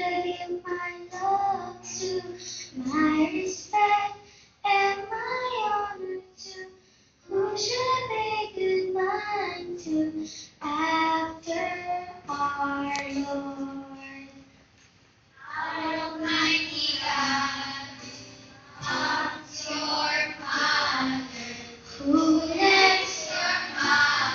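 Children singing a song together on stage, their voices carried by microphones; the singing grows louder and fuller about two-thirds of the way in.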